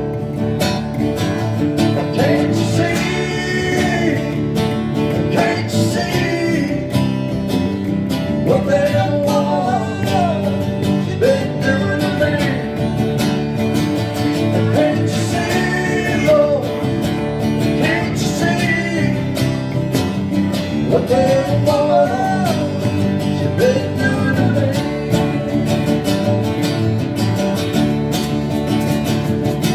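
Live country-rock trio: acoustic guitar strumming and electric bass playing an instrumental stretch of a song. A melody line that bends in pitch weaves over the top.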